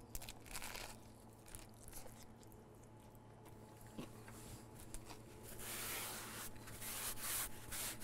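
A person biting into and chewing a BBQ chicken slider topped with crispy fried onion rings. There are scattered crunches at first, then denser crunching from about halfway through.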